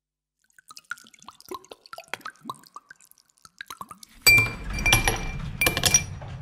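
Ice cubes dropped into a glass whisky tumbler: faint small tinkles, then about four seconds in three loud ringing clinks of ice against glass, over a low rumble.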